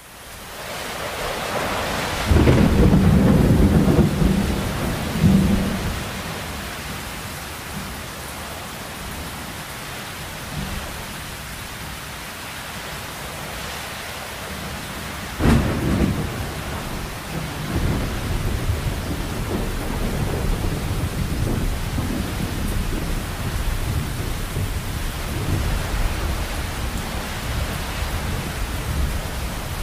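Heavy rain falling steadily during a thunderstorm, fading in at the start. A loud rumble of thunder begins about two seconds in and lasts a few seconds. A sharp crack about halfway through rolls into a long, low rumble that carries on under the rain.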